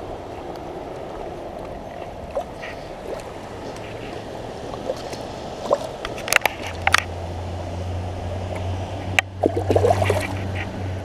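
Shallow river water running, with sharp splashes about six to seven seconds in and a burst of splashing near the end as a hooked channel catfish thrashes in the shallows and is grabbed by hand. A low steady hum comes in about halfway through.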